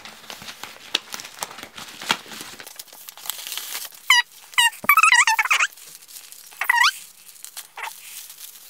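Crinkling and rustling of a padded paper mailer and tissue paper being opened and handled. About four seconds in come several short, high-pitched squeaky cries that slide down in pitch, the loudest sounds here.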